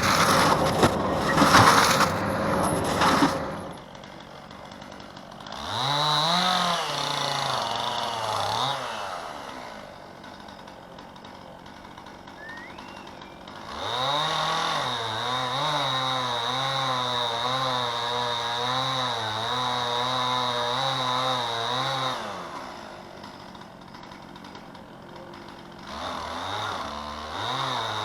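A loud rough noise for the first few seconds, then a two-stroke chainsaw, likely the Stihl 261 C-M, throttled up from idle twice. It is held at high revs with a wavering pitch, as when cutting under load, for about three seconds and then about eight seconds, dropping back to idle between. It revs up again near the end.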